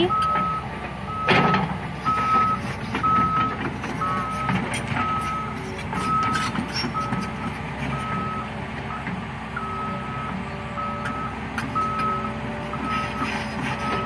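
Caterpillar hydraulic excavator's travel alarm beeping steadily about twice a second over its diesel engine running, the sign of the machine tracking across the ground. A single clunk sounds about a second in, and the beeping pauses briefly about nine seconds in.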